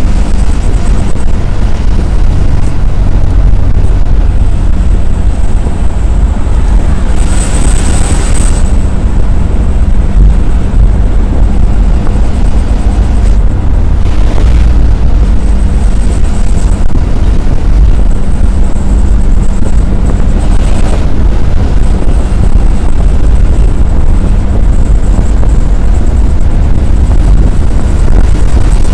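Loud, steady rumble of a vehicle at full highway speed, with engine, tyre and wind noise on a windscreen-mounted camera. Brief rushes of noise come and go, one as a truck is overtaken about halfway through.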